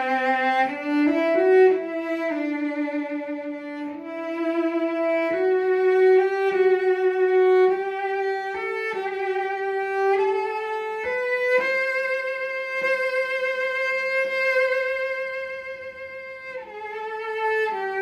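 A. Sandini cello bowed in a slow single-line melody in its middle register, the notes changing every second or two with vibrato. One long note is held for about five seconds in the second half.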